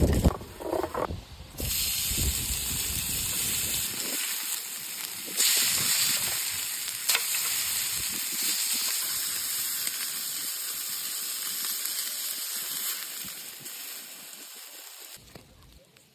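Entrecote steak sizzling on a hot cooking surface: a steady hiss that starts suddenly about a second and a half in, grows louder around five seconds in, and fades near the end. Low wind rumble and a few knocks come in the first few seconds.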